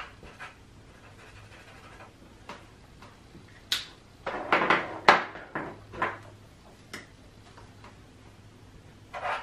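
Felt-tip markers being handled on a tabletop: scattered light clicks, then a louder clatter of clicks about four seconds in as one marker is put down and another taken up, followed by a few lighter clicks.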